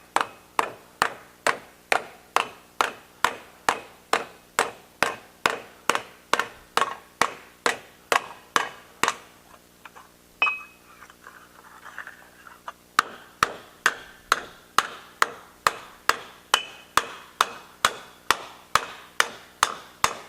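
Blacksmith's rounding hammer striking a steel disc in a cast swage block, about two to three blows a second with a metallic ring after each. The blows pause for a few seconds about nine seconds in, then resume at a slightly quicker pace.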